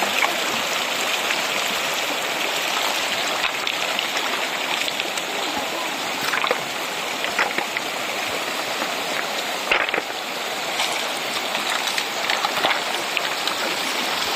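River water rushing steadily over rocks, with small splashes and a few sharp knocks, one clearest about ten seconds in, as hands turn stones in the shallows.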